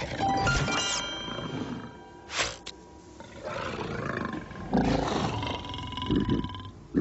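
Cartoon animal roaring over music and sound-effect hits, with the loudest low roaring bursts about five and six seconds in.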